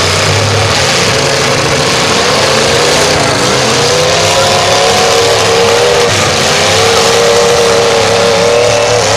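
Several demolition derby cars' engines revving hard under a loud, dense racket. From about four seconds in, a high engine note rises and falls as one car is pushed to full throttle.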